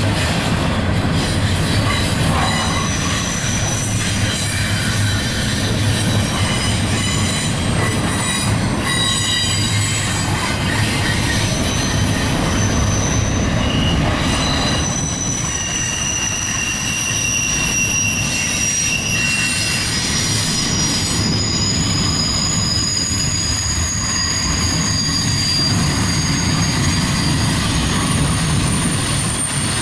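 A CSX intermodal freight train's double-stack container well cars rolling past: a steady rumble of wheels on rail, with high-pitched wheel squeals that come and go.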